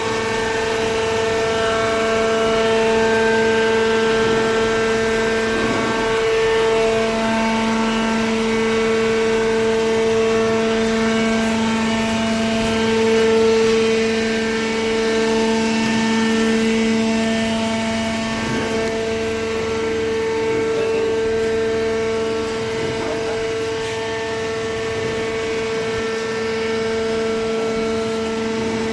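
Hydraulic pump and motor of a vertical cardboard baler running with a steady hum and whine.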